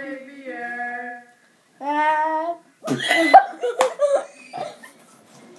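Children's voices: a few held, sing-song notes, then a loud shriek about three seconds in that fades within about a second and a half.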